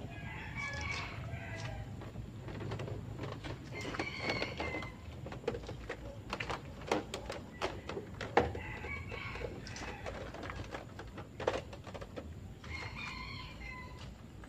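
Roosters crowing, four calls of about a second each, with a scattering of sharp clicks and knocks in between.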